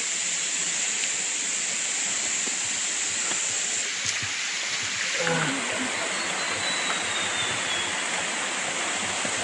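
Steady rush of a waterfall, an even hiss of falling water with no pauses.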